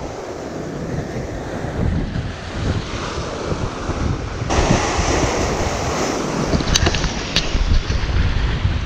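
Sea surf breaking and washing over rocks, with wind buffeting the microphone. The noise gets suddenly louder about four and a half seconds in, and two short clicks come a little later.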